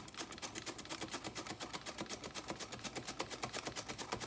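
A celery stalk pushed rapidly back and forth over a Börner V-blade mandoline slicer: a quick, even run of cutting strokes, several a second.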